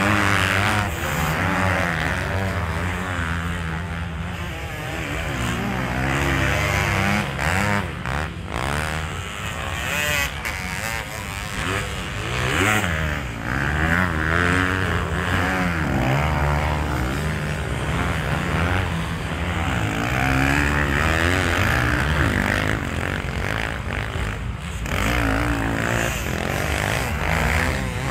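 Several motocross bikes' engines revving up and down as they ride over sand jumps, their overlapping pitches rising and falling as riders open and close the throttle.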